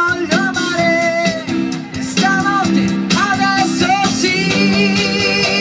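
Live rock band playing: electric guitar and drum kit under a held, bending melody line.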